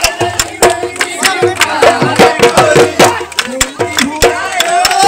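Bihu folk music played live: quick, sharp drum strokes with a sliding melody line over them.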